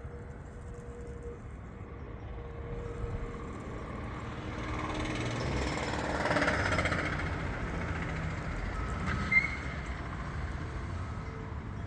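Gas-powered motorized bicycle's small two-stroke engine running on a test ride, growing louder to a peak about six seconds in and then easing off. A sharp click about nine seconds in.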